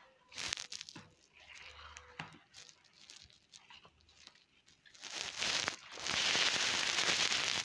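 Crinkling and rustling of a thin plastic strip dangled for a kitten to play with: scattered light crackles at first, then a loud continuous crinkling for the last two to three seconds that cuts off suddenly.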